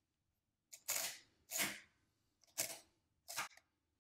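Mercedes-Euklid Model 1 mechanical calculator's mechanism being worked by hand: a light click, then four short clattering strokes of its levers and gears, each a fraction of a second, about one a second.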